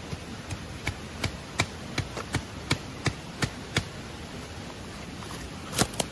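A run of sharp knocks in a steady rhythm, about three a second for some four seconds, then two quick knocks close together near the end, over the steady rush of a stream.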